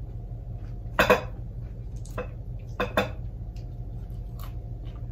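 Eating sounds at a table over a steady low hum: a handful of sharp clicks and smacks, the loudest about a second in, then a quick pair near three seconds.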